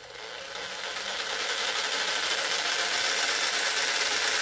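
Handheld electric jigsaw running free, not cutting, its motor and blade mechanism speeding up over the first second or so and then running steadily.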